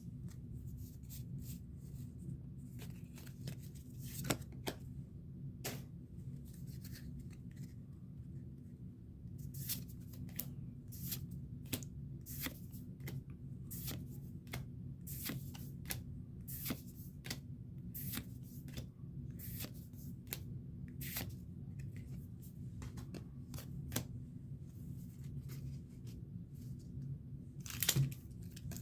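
Pokémon trading cards being handled and flicked one by one from a freshly opened pack: a steady run of light snaps and card-on-card slides, a few each second, over a low steady hum.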